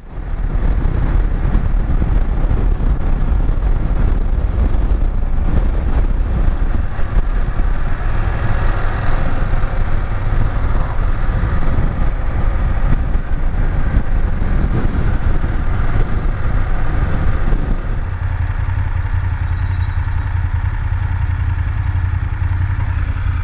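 BMW F750GS parallel-twin motorcycle being ridden: engine and heavy wind rush at road speed. About three-quarters of the way through, the wind noise drops and the engine's low steady hum comes forward as the bike slows.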